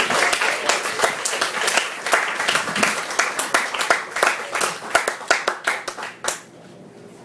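Small audience clapping, dense at first, then thinning out and dying away about six seconds in.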